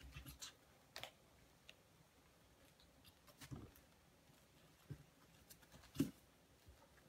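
Faint scattered taps, scuffles and knocks of Coton de Tulear puppies moving about and bumping against the wall of their pen, with the sharpest knock about six seconds in.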